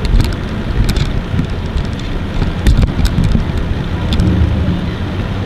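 Wind buffeting the microphone over the low rumble of boat engines idling as a small runabout moves off from the dock. A steadier engine hum comes up about four seconds in.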